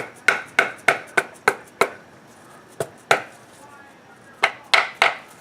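Hand hammer tapping on metal with a short ringing after each blow: a quick run of about three taps a second, a pause with a single tap, then three more taps near the end.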